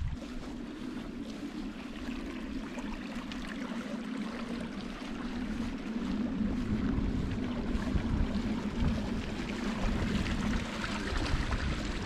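Small meadow stream trickling and babbling over grass and stones, with wind gusting on the microphone and a steady low hum underneath.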